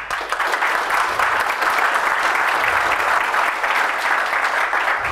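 Audience applauding: many people clapping in a dense, steady patter.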